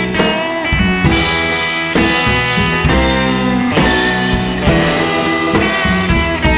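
Background music: a rock track with guitar and a drum kit, chords changing about every second.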